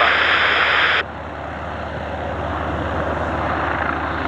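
Radio static hiss that cuts off suddenly about a second in, leaving a steady aircraft engine noise that slowly grows louder.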